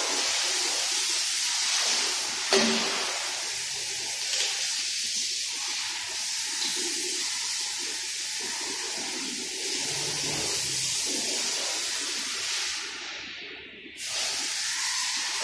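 A steady spraying hiss that cuts off suddenly about 14 seconds in and starts again a moment later, with a sharp knock about two and a half seconds in.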